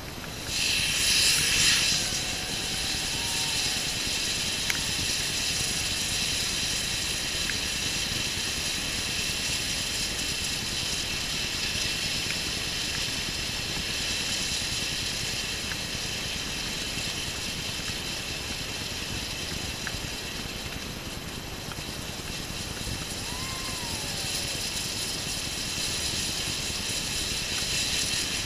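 Ground firework fountain spraying sparks with a steady hiss, after a louder surge about a second in.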